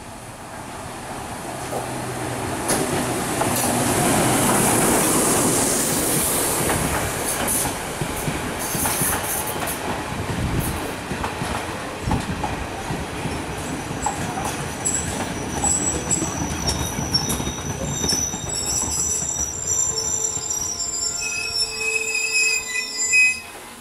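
Class S9 diesel multiple unit running into the station. The rumble of its engines and wheels builds to its loudest a few seconds in, with wheels clattering on the rails. Over the second half steady high-pitched wheel and brake squeal sets in as the train slows at the platform, with a sharp loud sound just before the end.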